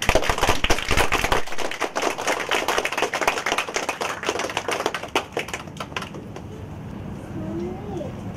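Audience applauding: many hands clapping together, the clapping thinning out and dying away about six seconds in.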